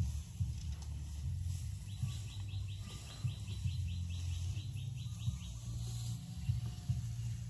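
Wind buffeting the microphone as a low, uneven rumble over the sound of wind through tall grass. From about two seconds in, a faint, high, rapid chirping call of about four or five notes a second runs for several seconds.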